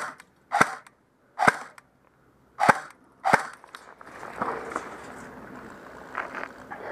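Airsoft gun firing five single shots, sharp snaps spaced irregularly over the first three and a half seconds, followed by quieter rustling background.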